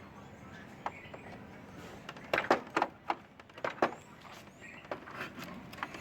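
Hard clicks and knocks, a quick run of about six between two and four seconds in and a few more near the end: an LG top-load washer's lid lock being unscrewed and handled.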